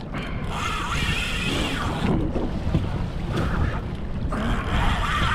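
Wind buffeting the microphone and sea water washing around a fishing boat offshore, a steady low rumble with two stretches of hissing rush.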